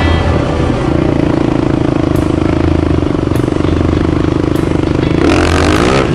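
Dual-sport motorcycle engine running steadily at low trail speed, heard up close from the riding bike. Near the end it rises in pitch as the rider opens the throttle.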